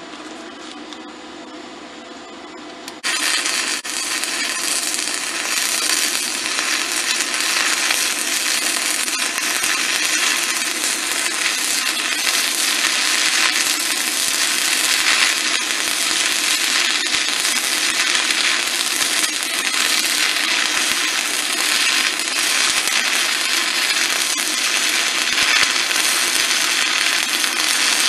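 About three seconds in, a 1/8-inch E6010 stick electrode strikes an arc on a SanRex SanStick 160S inverter welder, and the arc then crackles loudly and steadily as the bead is run, holding without going out on 110 volts through 100 feet of extension cord. Before the strike only a low, steady hum is heard.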